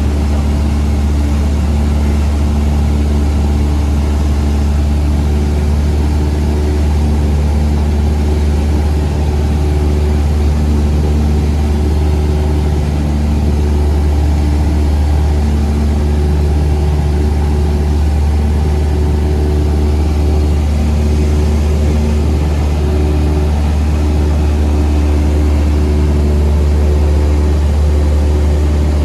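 Cessna 172's piston engine and propeller running steadily in flight, a loud, even drone that hardly changes in pitch.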